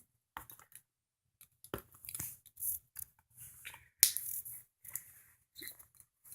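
Hands working at a taped cardboard toy box to get it open: scattered small clicks, scrapes and short rustles, with one sharp click about four seconds in.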